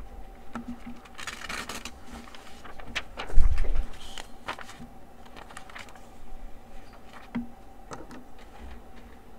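Paper handled close to the microphone: sheets rustling and sliding, with a dull thump about three and a half seconds in and a few light taps afterwards.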